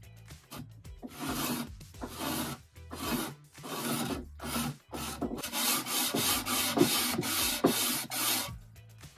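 Hand sanding a bare wooden drawer with a sanding sponge: a run of back-and-forth scraping strokes, slower at first and quicker in the second half.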